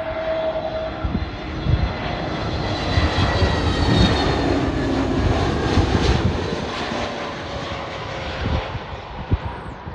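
A British Airways Airbus A320-family airliner passes low overhead on final approach. Its jet engine noise swells to a peak mid-way and then fades as it moves away, with a whine that falls slowly in pitch.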